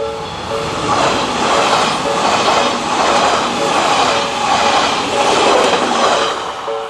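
A train running through a level crossing on the Odakyu Odawara Line, its wheels rumbling on the rails with a pulsing clatter, loud from about a second in and fading near the end. The crossing's warning bell keeps ringing about twice a second, partly drowned out by the train.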